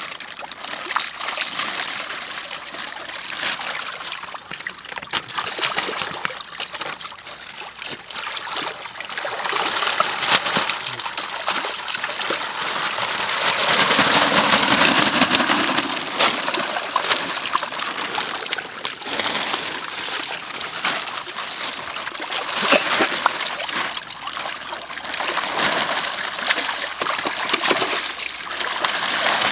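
Koi splashing in shallow water as they are netted up during a pond harvest: a continuous run of small splashes and sloshing, heaviest about halfway through.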